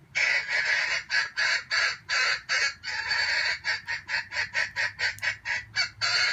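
Jungle fowl giving a long, harsh cackle: a run of short, loud calls, about three a second at first and quickening to about five a second in the second half.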